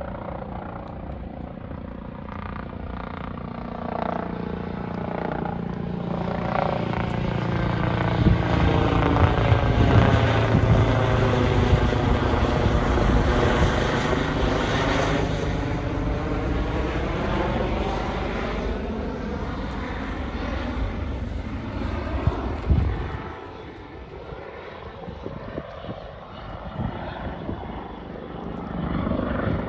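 Airbus EC135 twin-turbine helicopter coming in to land, its rotor and turbine noise growing louder to a peak about ten to fifteen seconds in, then easing off.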